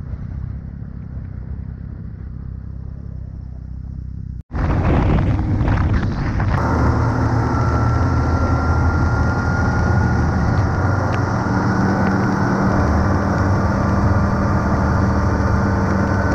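Snowmobile engines running with a low, muffled rumble; about four seconds in the sound cuts to a louder snowmobile running steadily at speed, heard from on board, with a steady engine drone and a faint high whine.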